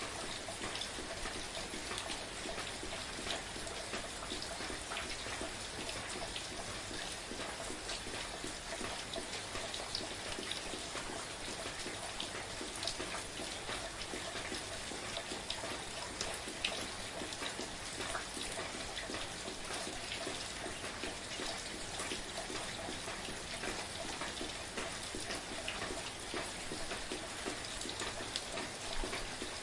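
Steady soft rain falling, an even hiss with many small drops ticking through it.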